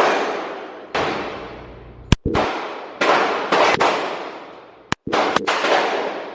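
Gunshots fired at a shooting range: four heavy reports spaced one to two seconds apart, each trailing off in a long echoing decay, with a few shorter, sharper cracks in between.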